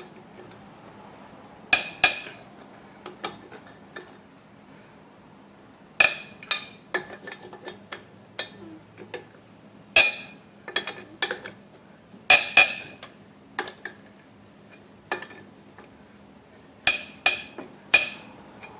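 Steel lug wrench clinking against wheel lug nuts as it is fitted onto each nut and the nuts are tightened down in turn: sharp ringing metallic clanks every few seconds, some in quick pairs or triples, with lighter ticks between.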